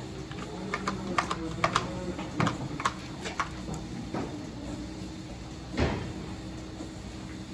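Irregular metallic clanks and knocks from steel headlocks and stall rails as restrained cows shift, with a heavier thump about six seconds in, over a steady low hum.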